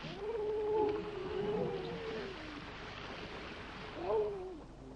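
Seals calling: one long wavering wail of over two seconds, then a shorter call that rises and falls about four seconds in.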